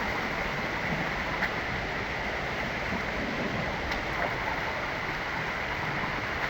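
Steady rushing of flowing water, a stream or waterfall.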